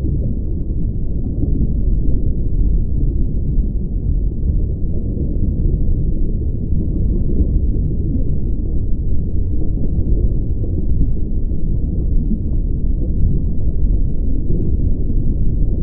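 Steady low rumble with no clear pitch, rhythm or sudden sounds, holding level throughout.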